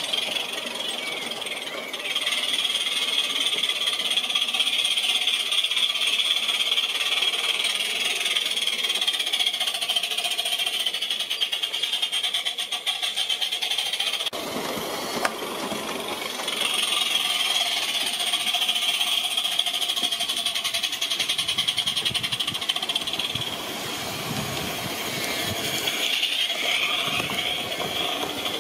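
Cheddar Models Iver live-steam model locomotive running with a train on garden-scale track: a steady steam hiss with fast, even exhaust beats. About halfway through a lower rumble of wheels on the rails joins in and stays as the train comes close.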